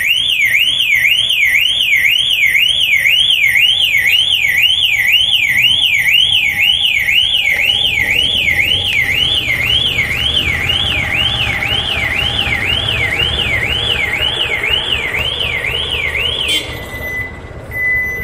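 Electronic alarm siren wailing, its pitch sweeping rapidly up and down about two to three times a second. It cuts off suddenly near the end, followed by a short steady beep.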